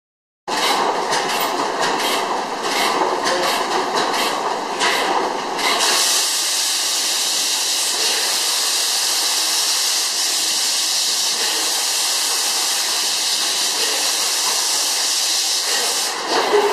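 300 hp Miller Improved stationary gas engine: a rapid, irregular clatter of clicks for about five seconds, then a loud, steady hiss for about ten seconds, with the clicking coming back near the end.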